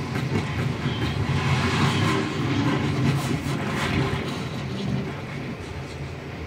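Movie sound effects of a Black Hawk helicopter crashing, played through a TV speaker: a continuous rumbling, scraping crash with scattered debris impacts, slowly dying away near the end.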